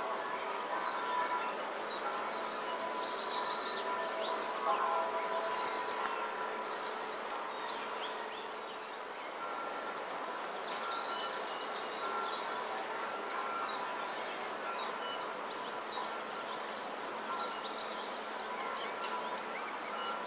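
Quick series of high bird-like chirps over a steady background drone with several held tones.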